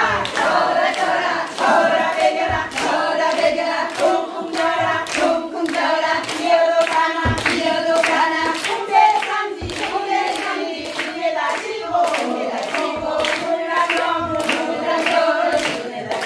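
Group of women singing a Jeju haenyeo (woman diver) folk work song together, over a steady beat of sharp knocks about twice a second.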